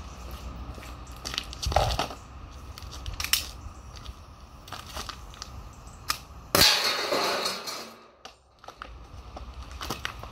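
A single shot from a low-power Chiappa '528' pistol firing an 11-gram .50 calibre lead ball about two thirds of the way in, with the ball striking metal plates and knocking them over with a clatter that fades over a second or so. A few small clicks come before it.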